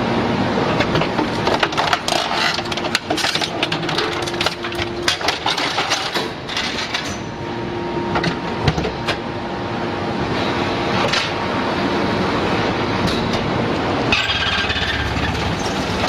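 Hydraulic metal scrap baler-shear running: a steady drone with a few held tones, and the clanking and knocking of scrap metal, thickest in the first half. The sound changes near the end.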